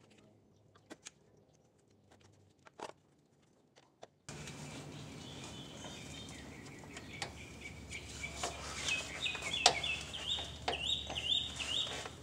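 Near silence with a few faint clicks, then about four seconds in a rise of outdoor background noise in which birds chirp repeatedly, more busily toward the end, among scattered sharp clicks and knocks.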